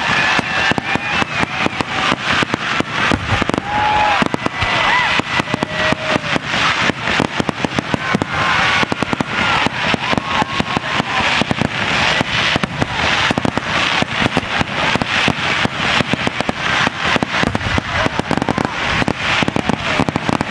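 Fireworks grand finale: a dense, unbroken barrage of aerial shell bursts, many sharp reports a second with no let-up.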